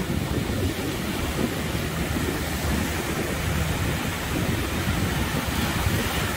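Gulf surf breaking and washing up the beach, with wind rumbling on the microphone: a steady rush of noise, heaviest in the low end.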